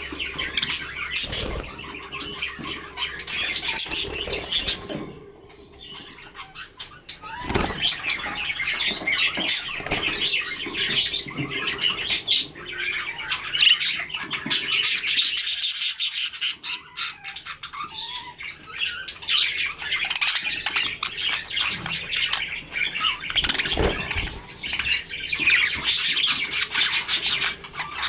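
Budgerigars chattering and chirping in a steady stream of fast clicks and warbles, with wing flutters and a few soft bumps.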